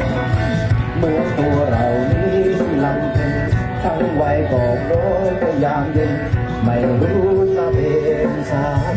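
Music: a singing voice and guitar over a steady beat.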